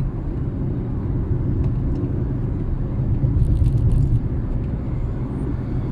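Steady low rumble of a car, a little louder about three and a half seconds in, with a few faint ticks.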